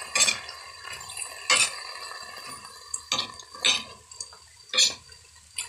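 Metal spatula scraping and knocking against a wok as cooked crawfish are stirred and tossed, the shells clattering; about six sharp strokes spaced a second or so apart.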